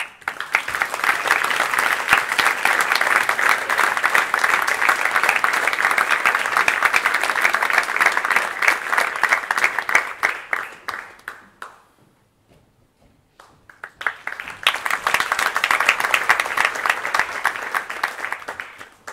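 Theatre audience applauding, in two rounds: the first lasts about eleven seconds and dies away, and a second starts about two seconds later and stops near the end.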